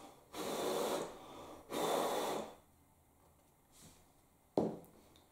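A person blowing two puffs of breath onto freshly applied super glue to help it set, then a short sharp knock near the end.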